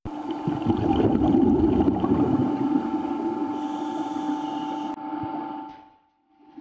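Underwater sound of a scuba diver's regulator: exhaled air bubbling and gurgling, loudest in the first two seconds, over a steady hum. It fades out near the end.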